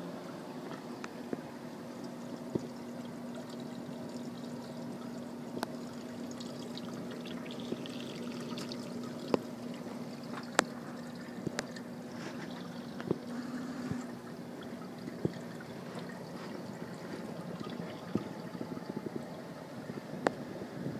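Water trickling and pouring through the rear filter chamber of a 28-gallon nano cube reef aquarium, over a steady low hum that stops about three-quarters of the way through. Scattered sharp clicks sound now and then.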